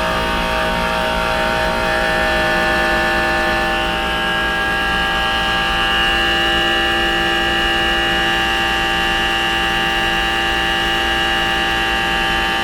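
Worn Trane compressor in a pool dehumidifier running loud, a whining hum of many tones that wavers at first and then settles steady. The owner takes the noise for something coming loose inside the compressor.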